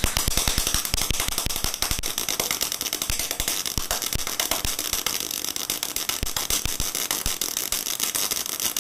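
MIG welding arc from a Bimarc MIG-500 industrial welder on 1.2 mm wire at about 21 V and 190 A, spitting and popping rapidly and irregularly, many pops a second, instead of a steady hiss. It is an unstable arc that won't form a proper weld, which the repairer takes for the machine not delivering enough voltage for the wire feed speed.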